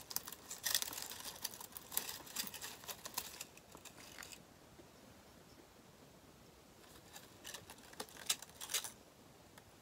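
Light rustling and small clicks and taps of craft decorations being handled and set in place, a run of them at first, a lull, then a few more near the end.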